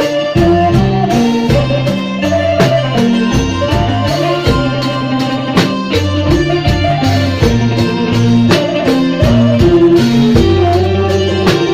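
Khmer Krom band playing a traditional tune. A two-string bowed fiddle (tro) carries the melody over electric guitars, electric bass and a drum kit keeping a steady beat.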